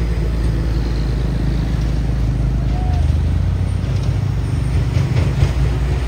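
Heavy truck's diesel engine running, a steady low drone that shifts slightly about halfway through.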